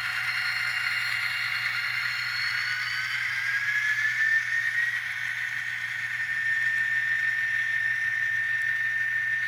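N scale model locomotives running on the layout track: a steady motor and gear whine over the rolling noise of metal wheels on rail. About three seconds in, the whine rises a little in pitch and then holds steady.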